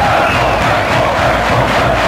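Large crowd of football supporters in a stadium cheering and shouting.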